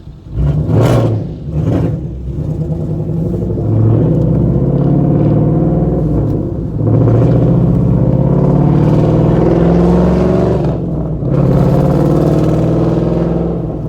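Straight-piped Ford 5.0 V8 exhaust with two quick revs, then three long hard pulls rising in pitch, each broken by a short dip as the gears change.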